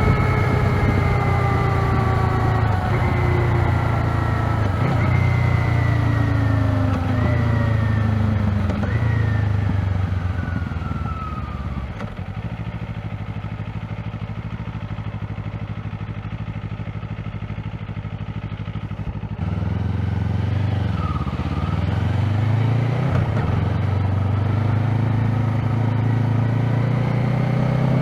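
Kawasaki Z500 motorcycle engine on its stock exhaust, still in its break-in period: the revs fall away over the first ten seconds or so, the engine settles to a steady idle, and then it picks up again with the revs climbing toward the end.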